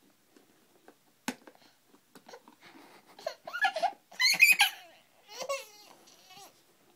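Baby girl laughing in a run of short bursts, loudest about four seconds in, after a single sharp knock about a second in.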